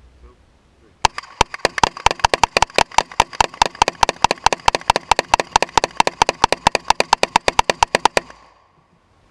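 Rapid gunfire: a long unbroken string of sharp shots, about seven a second for some seven seconds, starting about a second in and stopping abruptly.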